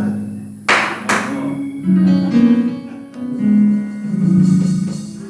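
Instrumental church music under a preacher's pause: sustained chords that shift pitch every second or so, with two sharp hits about a second in.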